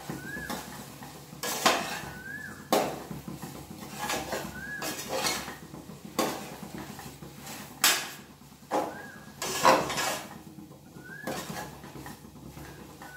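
A metal spoon scrapes and knocks against the sides of a pressure cooker as mint and coriander leaves are stirred into masala, with irregular sharp clinks. A short rising chirp, fainter than the clinks, recurs about every second or so.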